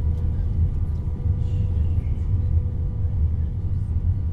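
Cabin noise inside an Airbus A319 airliner: the steady low rumble of the engines and airflow, with faint steady whining tones from the engines over it.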